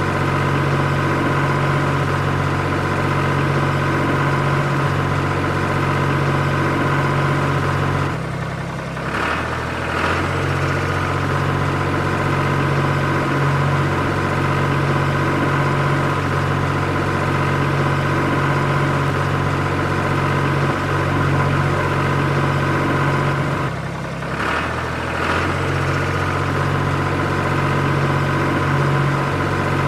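Tractor engine running steadily at a low, even speed, with a brief dip in sound twice, about eight seconds in and again some sixteen seconds later.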